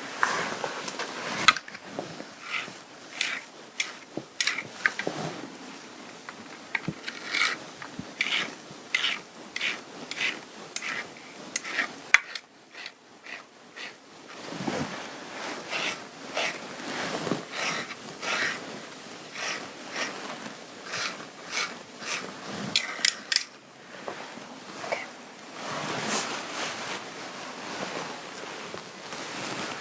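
Fabric rubbing and rustling in many short, scratchy strokes, with a brief lull about halfway through.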